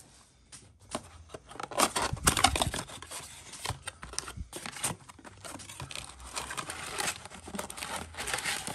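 Trading card pack wrapper being torn and crinkled open by hand: a string of crackly rustles and small tearing sounds, loudest about two seconds in and again near the end.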